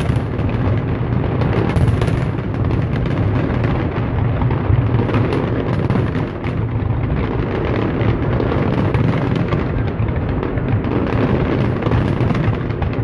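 A large fireworks display going off in a dense barrage: many bangs overlapping one another without a break.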